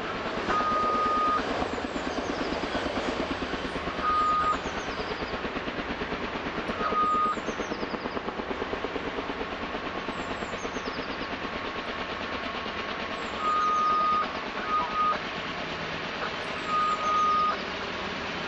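Kaman K-MAX heavy-lift helicopter hovering, its intermeshing twin rotors giving a steady pulsing thud. A single high electronic beep sounds about seven times at irregular intervals, some short and some nearly a second long.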